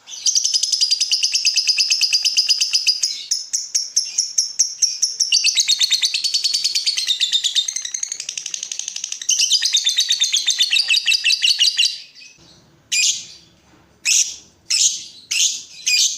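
Lovebird chattering in a fast, unbroken run of high ticking chirps, close to ten a second, of the kind keepers call 'ngetik'. After about twelve seconds it stops, and a few separate sharp chirps follow.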